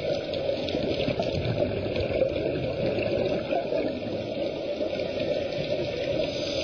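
Muffled, steady rushing and bubbling of water as heard through an underwater camera housing on a scuba dive.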